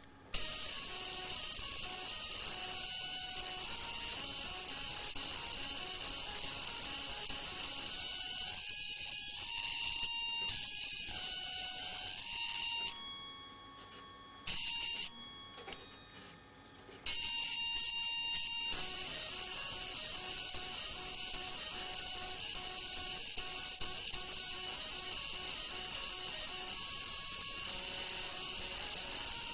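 Halide arc lamp's arc playing synthesizer notes with no loudspeaker: a buzzy, hissy drone carrying a melody of held tones that step between pitches. It cuts out twice near the middle, for about a second and a half each time.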